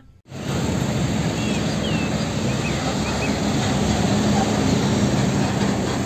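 Steady engine and road noise of a Pertamina fuel tanker truck on the road, a low even drone, with a few faint high chirps about two seconds in.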